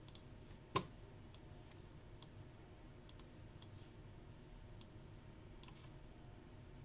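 Faint, irregular clicks at a computer, about nine of them, the loudest a little under a second in.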